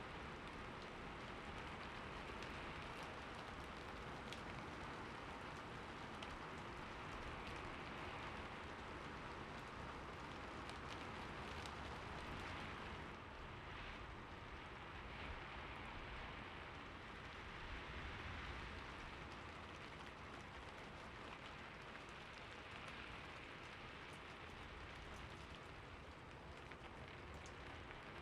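Light rain falling steadily, an even hiss of drops with scattered small patters.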